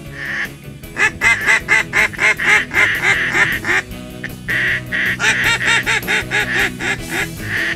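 Mallard quacking, loud and fast: two long runs of evenly spaced quacks at about four or five a second, with a short break near the middle.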